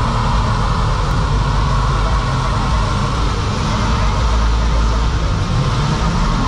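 Dodge Challenger doing a burnout: engine held at high revs and tyres spinning, a loud, steady rush of noise.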